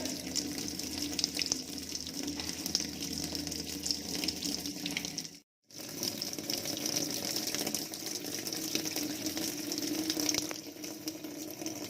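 Water pouring into the tub of a Toshiba 10 kg top-loading washing machine as it fills at the start of its tub-clean cycle: a steady rush of water with a low hum. It drops out abruptly for half a second about five and a half seconds in.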